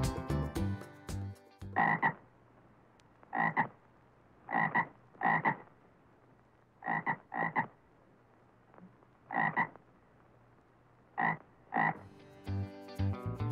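Tree frog croaking: short separate croaks, some single and some in quick pairs, about nine in all, over a faint steady hum. Children's music plays for the first couple of seconds and comes back near the end.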